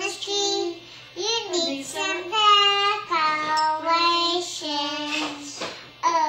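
A young girl singing in a high voice, with long held notes and a short break about a second in.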